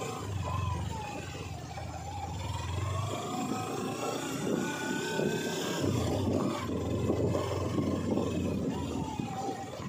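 Sport motorcycle engine running at low revs on a rough dirt road, its pitch rising and falling gently with the throttle, over a rough rumble from the tyres on gravel.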